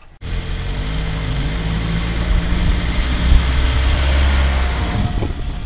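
Mitsubishi Outlander's engine running steadily as the crossover crawls over uneven snowy ground.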